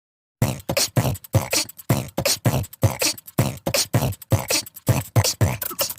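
A fast percussive beat in a beatbox style, with about four to five hits a second, each a low thump with a hissing top. It starts after a brief gap and stops abruptly just after the end.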